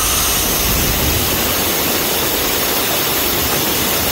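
Compressed air rushing out of the partly opened outlet valve of a Vanair 185 underdeck rotary screw compressor, a loud steady hiss, with the PTO-driven compressor and truck engine running underneath.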